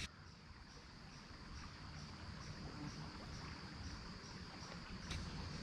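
Insects trilling in a steady, high, evenly pulsing chorus over the low, even rush of a small stream.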